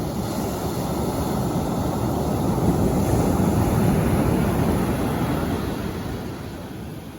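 Sea waves washing onto the shore: a rushing wash that builds to a peak about halfway through and then recedes.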